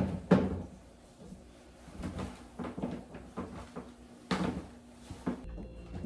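Handling noise in a small room: two sharp knocks at the start, the second the loudest, then light clicks and rustling, and two more knocks near the end.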